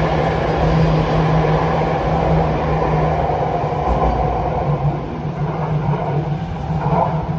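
Jakarta MRT electric train moving alongside the platform: a steady rolling rumble with a low motor hum that fades after about three seconds. A faint high whine joins in the middle and the overall noise eases slightly toward the end.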